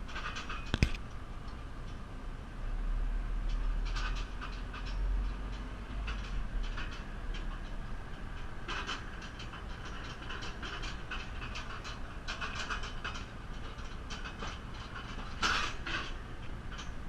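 JCB 3CX backhoe loader's diesel engine running, its low rumble heavier for a few seconds near the start as it takes load, with frequent metallic clicks and rattles from the machine working.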